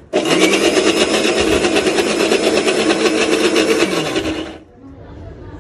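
Electric mixer grinder running, its steel jar grinding soaked moong dal into a coarse batter. The motor starts with a short rise in pitch, runs steadily for about four and a half seconds, then is switched off and winds down.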